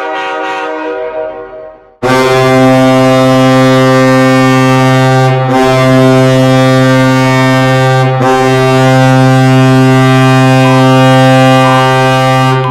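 NHL arena goal horn, a deep ship-style air horn, sounding in three long blasts separated by two very short breaks, starting about two seconds in after a fading tone.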